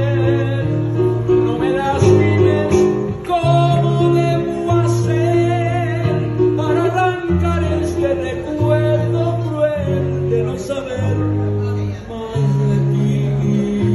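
Live music: an acoustic guitar strummed over a steady, walking bass line, with a man's voice singing the melody.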